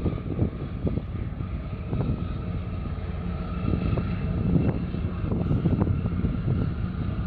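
Wind buffeting the microphone in uneven gusts, a heavy low rumble, with a faint steady drone underneath.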